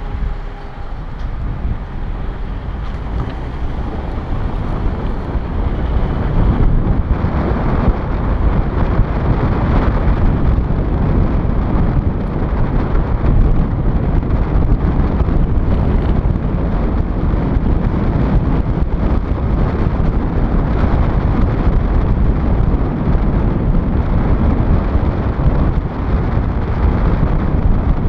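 Wind buffeting the microphone of a moving vehicle's camera, over a steady rumble of road and engine noise; it dips briefly at the start and grows louder after a few seconds as the vehicle picks up speed.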